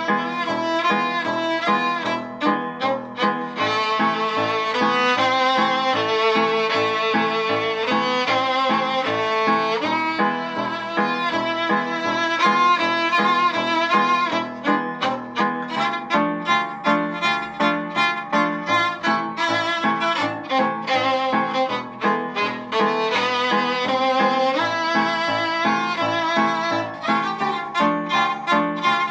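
Solo violin playing a Romanian/Russian-flavoured melody with vibrato over a piano accompaniment, the low piano notes striking in an even rhythm.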